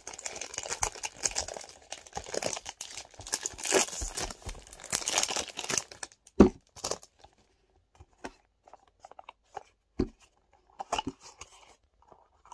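Clear cellophane wrapper being torn and crinkled off a perfume box, a dense crackling for about six seconds. Then it goes quiet apart from two sharp knocks and a few small clicks and scrapes as the cardboard box is handled and opened.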